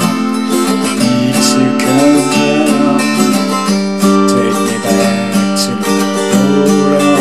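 Acoustic guitar with a capo, strummed through a minor-key chord progression (D minor, C and A7), with sustained ringing chords and steady strokes.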